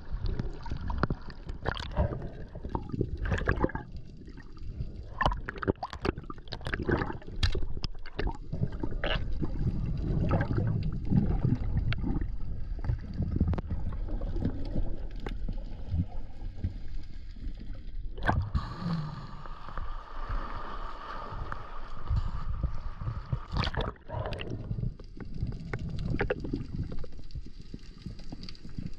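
Seawater sloshing and gurgling around an action camera at the surface, then muffled underwater noise with many scattered knocks and clicks as the diver swims along the rocks. About two-thirds of the way through a steady hum joins in.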